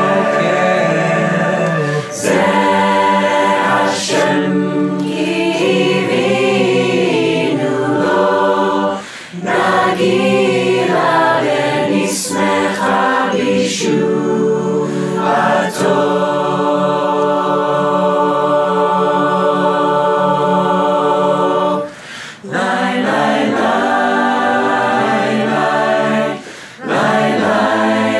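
A virtual choir of mixed male and female voices singing in harmony, a cappella, with a long held chord in the middle and a few brief gaps between phrases.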